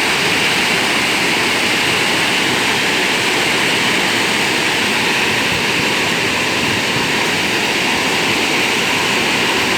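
Waterfall water rushing, a loud, steady roar of falling water that holds without change.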